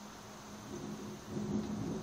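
Distant thunder rumbling low, swelling about a second in and peaking near the end.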